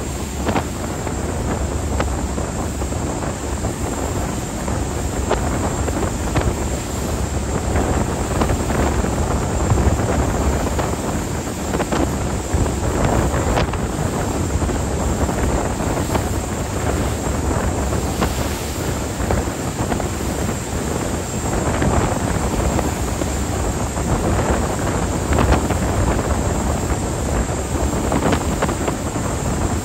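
Wind buffeting the microphone aboard a moving ferry, over the steady rush of water and the boat running underway.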